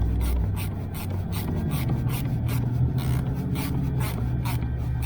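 A hand tool working a screw into the seat hardware: a quick, even run of short scraping strokes, about four or five a second, over a steady low hum.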